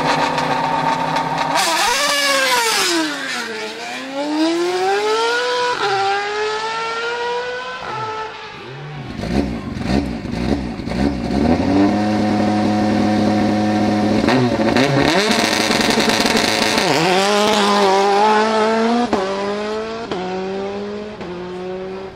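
Two hillclimb cars launching from the start line one after the other. First a single-seater formula car revs, launches about two seconds in, its engine pitch dipping and then climbing, and shifts up twice as it pulls away. Then a Ford Escort RS Cosworth idles steadily and launches a little past the middle, climbing through several upshifts as it goes away up the hill.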